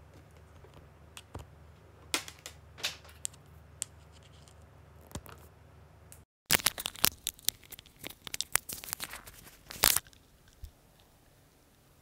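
Handling noise from wired earphones being plugged in and fitted: scattered clicks and rustles, then the audio cuts out for a moment about halfway through and the background hum is gone, as the earphone plug goes in. Dense rustling and scraping follow for a few seconds as the cable is handled.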